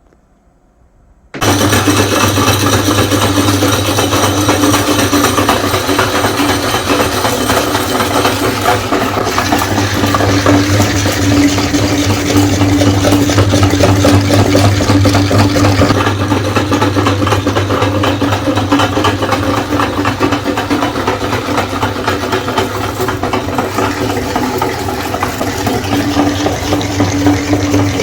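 Electric meat grinder switched on about a second in, its motor then running steadily with a loud, even hum.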